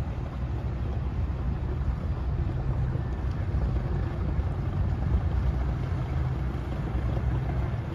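Sabre Express 38 motor yacht's engines running at slow idle speed, a steady low rumble, with wind noise on the microphone over it.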